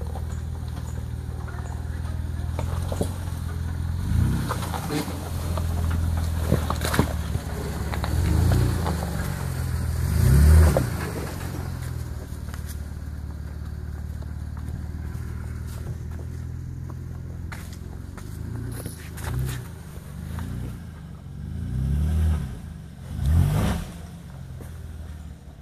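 Jeep Wrangler JKU engine running low and steady as it crawls over rock ledges, revving up and back down several times. The loudest revs come about ten seconds in and near the end.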